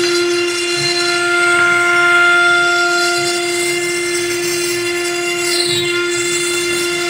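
CNC router spindle running at a steady high speed, a constant whine, as its bit cuts grooves into a board, with the hiss of the cutting underneath.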